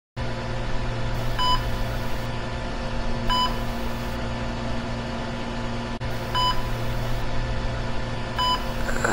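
A steady electrical hum with a low drone, over which short high electronic beeps sound four times at uneven intervals.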